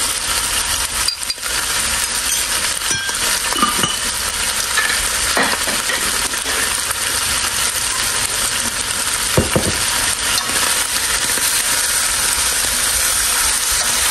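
Beef tendon pieces with lemongrass and chili paste frying in a pot: a steady, even sizzle, with a few light knocks of utensils against the pot and stirring with wooden chopsticks.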